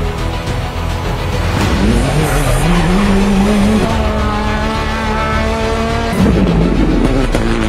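Rally car engine revving hard, its pitch climbing, then held high for a couple of seconds before dropping sharply near the end.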